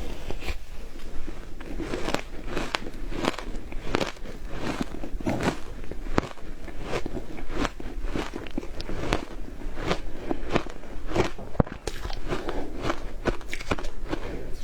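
Frozen matcha ice being bitten and chewed: a continuous run of irregular, crisp crunches, several a second.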